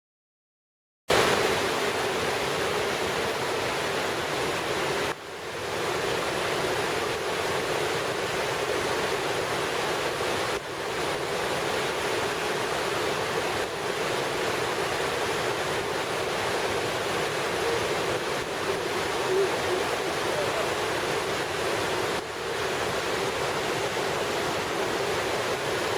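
A steady outdoor rushing noise that starts about a second in, with short drops in level about five, eleven and twenty-two seconds in.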